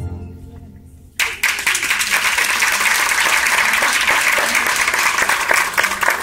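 The last chord of keyboard music fades out, then about a second in an audience starts applauding, and the applause goes on steadily.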